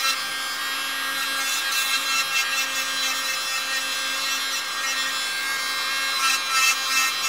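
Electric nail drill with a thin ceramic corn-cob bit running at steady speed, grinding and smoothing gel on the underside of the nail's free edge: a steady motor whine over a grinding hiss.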